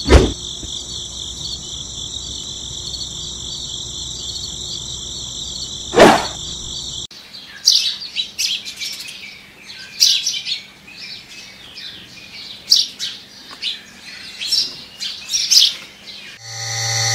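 Birds chirping in short, scattered calls for most of the second half. Before that, about the first seven seconds hold a steady high-pitched drone with two sharp knocks, one at the very start and one about six seconds in.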